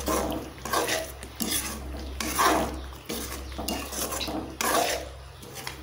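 Metal spatula stirring and scraping through thick egg curry gravy in a metal kadai: a series of short scrapes and clinks against the pan, roughly once or twice a second, over a low steady hum.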